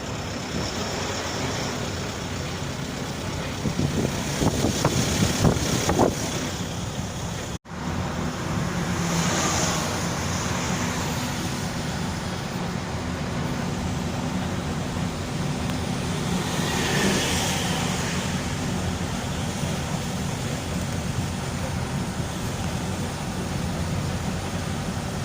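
Steady road traffic and engine noise from moving vehicles, with a louder passage about 4 to 6 seconds in. The sound drops out abruptly for an instant about a third of the way through.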